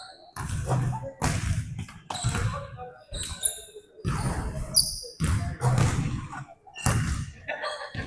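Basketballs bouncing on a hardwood gym floor in a run of thuds less than a second apart, with short high-pitched sneaker squeaks, echoing in a large gym hall.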